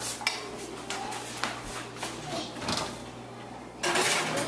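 Scattered small clicks and quiet handling noise, then near the end a sudden louder rush of noise as a glass baking dish is slid onto the metal rack of an open oven.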